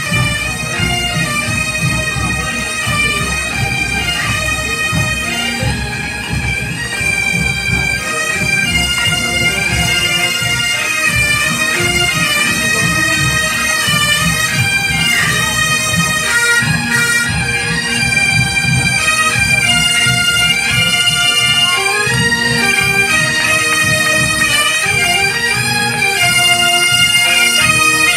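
Massed Highland-style bagpipes (biniou braz) of a large Breton pipe band playing a marching tune in unison over their steady drones. The sound grows louder as the band approaches.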